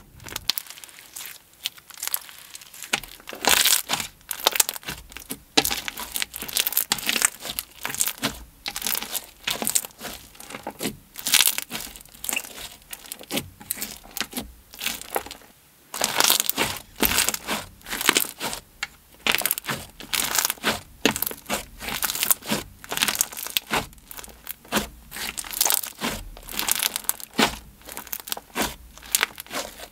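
Crunchy slime packed with red beads and sugar scrub being squeezed, pressed and stretched by hand, giving dense runs of short crunches and crackles in irregular clusters.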